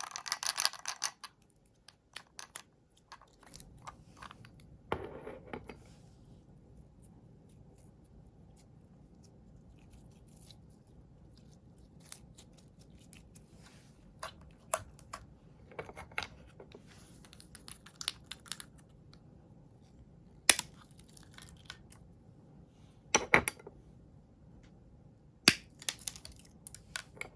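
Crunchy dino-egg shells being cracked and crushed into slime: scattered crackles and clicks, with a few sharp snaps near the end.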